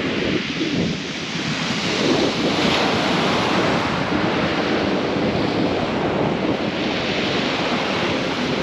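Waves breaking on a steep shingle beach, with wind on the microphone: a steady, fairly loud rush of noise.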